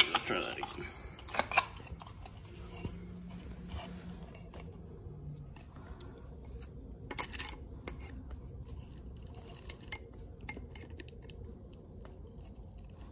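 Light metal clicks and scrapes of needle-nose pliers working at a snap ring in the shifter housing of a Nissan KA transmission, around the shift lever. A few sharper clicks in the first two seconds, then scattered faint ticks.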